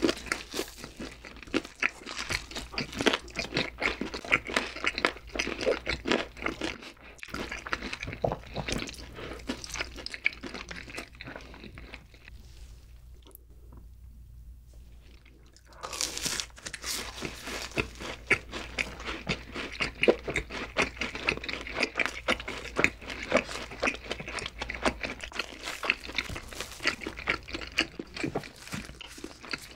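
Close-miked crunching and chewing of crispy fried chicken and fried cheese balls, dense crackling bites with wet chewing. It goes quieter for a few seconds about halfway through, then the crunching starts again loudly.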